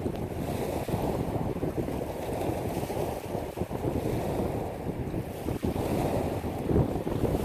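Waves breaking and washing onto a pebble beach, with wind buffeting the microphone.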